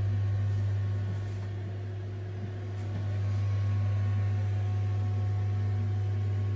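Steady low electrical hum, a little quieter between about one and three seconds in.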